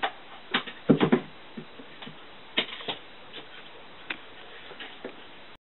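Irregular knocks and thumps on a wooden floor from a cat playing by itself, dashing and batting at a toy. The loudest flurry of knocks comes about a second in, with single knocks following every second or so.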